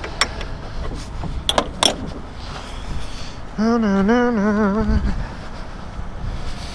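A few sharp clicks in the first two seconds, then a man humming a short wavering tune for about a second and a half, midway through.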